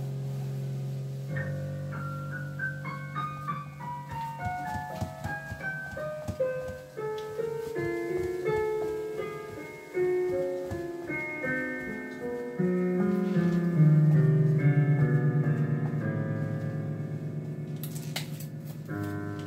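Solo piano music: a run of single notes stepping downward, then a low note repeated rapidly as a tremolo under higher chords, louder about two-thirds of the way in.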